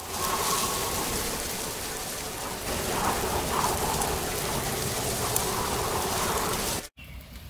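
Steady rain, a dense hiss of falling water. It starts abruptly and cuts off abruptly near the end.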